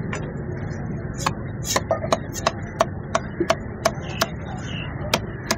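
A cleaver chopping a fish fillet into chunks on a wooden log block: a dozen or so sharp knocks, about two to three a second, with a short pause near the end. Steady background noise runs underneath.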